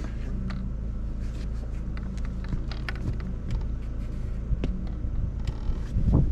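Steady low mechanical hum with scattered light clicks and knocks, and a louder low rumble about six seconds in.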